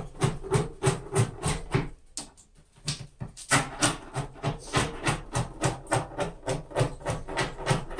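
Beeswax comb being scraped off a beehive frame: a quick run of short scraping strokes, about three or four a second, with a pause of a second or so partway through.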